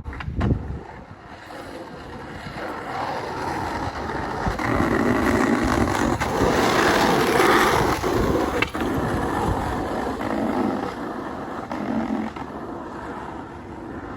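Skateboard wheels rolling on pavement, a rough rumble that builds to its loudest a little past the middle and then eases, with a few sharp clacks of the board.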